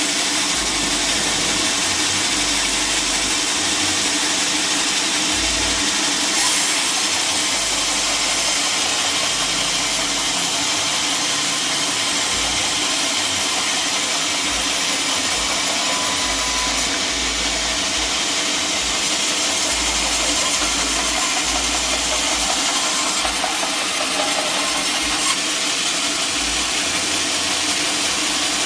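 Engine-driven sawmill saw running steadily, cutting through timber.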